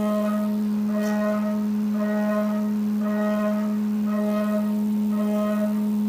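Haas VF4SS CNC mill's spindle and carbide end mill cutting aluminum on a high-speed waveform roughing pass: a steady high whine with a cutting tone that swells and fades about once a second as the tool loops in and out of the cut.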